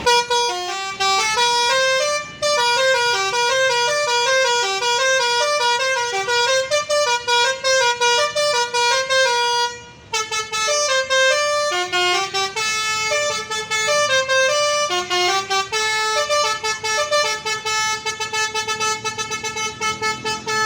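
Indonesian bus telolet horn, a musical multi-trumpet air horn, playing a tune of quickly stepping notes. It breaks off briefly about two seconds in and again about ten seconds in.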